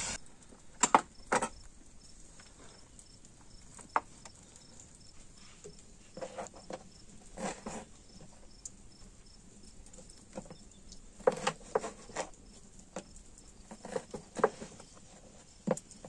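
Raw meat being cut by hand with a knife on a wooden board: scattered soft knocks and wet taps of the blade and the pieces, some in quick clusters, over a faint high regular ticking.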